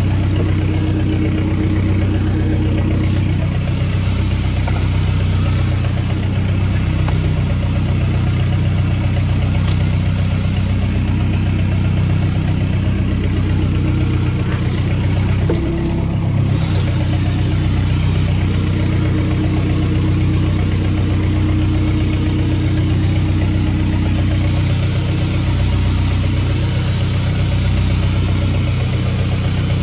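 Boat engine running steadily at idle, a low, even hum with a brief knock about halfway through.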